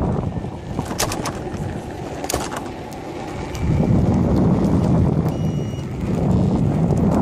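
Wind buffeting the microphone and road rumble while moving alongside an electric unicycle at speed, swelling and easing in gusts. A couple of sharp clicks about one and two seconds in, and a short beep about five seconds in.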